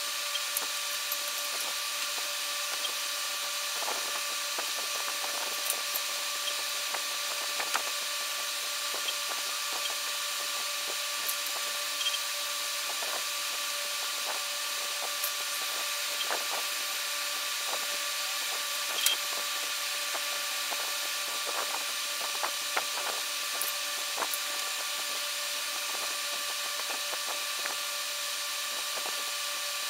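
A steady hiss with a whine of several fixed tones, over which come scattered faint taps and scrapes of a metal ruler and pencil against paper.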